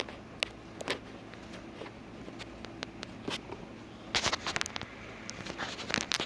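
Scattered clicks and taps over a steady low hum, with a louder cluster of rustling scrapes about four seconds in and another near the end: handling noise.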